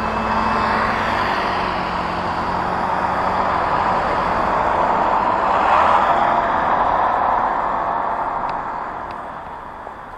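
Road traffic: cars passing close by, their engines and tyre noise on the asphalt swelling and fading, loudest about six seconds in and dying away near the end.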